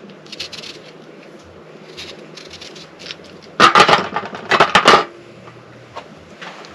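A handheld metal peeler scraping strips of rind off an orange in short, soft scratches, with two loud clattering bursts of handling noise a little past the middle.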